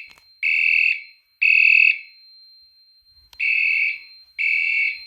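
Fire alarm sounding the temporal-three evacuation pattern: groups of three short high beeps, about two a second, with a pause of about a second and a half between groups. The system is in alarm because a heat detector has been tripped with a hairdryer.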